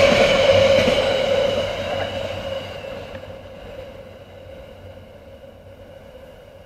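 Freight train wagons rolling past on steel rails, a steady whine over the rumble of the wheels. The sound fades away over about three seconds as the end of the train passes and draws off down the line.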